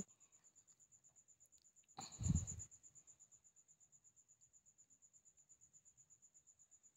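A faint, steady, high-pitched chirping that pulses about six or seven times a second. A brief louder noisy burst comes about two seconds in.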